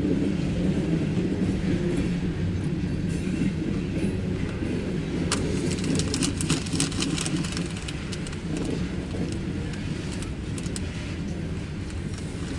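Loaded coal hopper cars of a CSX freight train rolling past, a steady low rumble, with a run of sharp clicks and squeaks from the wheels from about five to eight seconds in.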